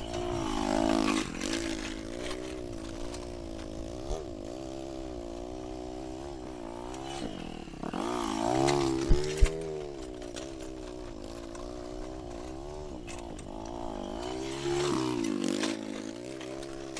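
Honda ATV's single-cylinder engine running, its pitch rising and falling with the throttle as it tows a box blade. It grows louder three times as it passes close by. Two sharp knocks come about nine seconds in.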